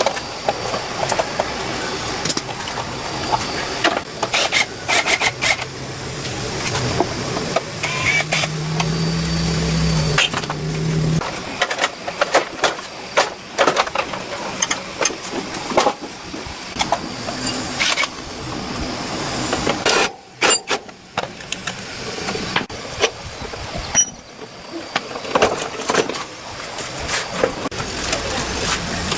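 Irregular sharp clicks and knocks, like hand-tool work on metal, over a steady background noise, with a low hum for a few seconds about a third of the way in.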